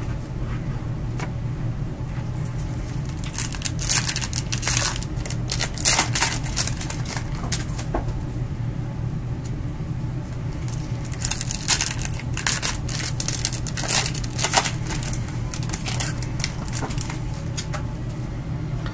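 Boxes and foil packs of trading cards being handled with gloved hands: irregular clusters of crackly clicks and light taps, heaviest a few seconds in and again around the middle, over a steady low hum.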